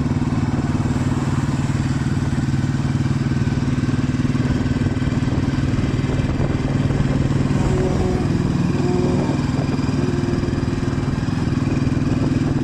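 Motorcycle engine running at a steady pace while being ridden, a constant low drone with no revving up or down.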